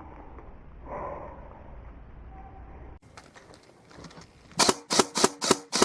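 Airsoft rifle firing a quick string of about five shots, around four a second, near the end, each a sharp snapping report. Before that there is only muffled rustling.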